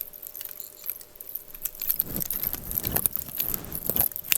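Light clicks, taps and small rattles of a hard 3D-printed plastic battery box being handled and fitted, with a few soft knocks about two and three seconds in and a sharp click near the end.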